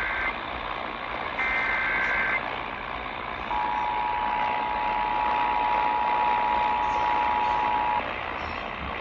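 Emergency Alert System tones opening a new alert: two one-second data bursts of the digital SAME header, about two seconds apart, then the steady two-note EAS attention signal held for about four and a half seconds. A constant hiss lies underneath.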